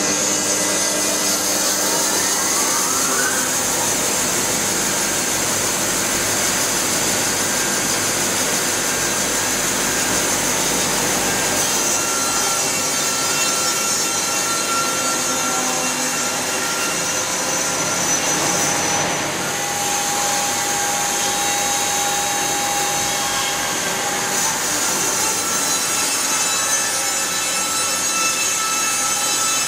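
Pilous CTR 800 S band sawmill sawing through a log: the band blade cutting wood with a steady machine whine and a dense, even sawing noise. A short rising whine comes about two seconds in.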